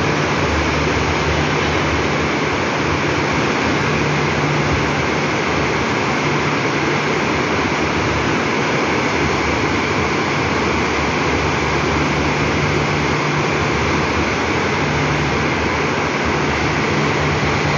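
Fast mountain river rushing over rocks: a loud, steady roar of whitewater, with a faint low hum that comes and goes.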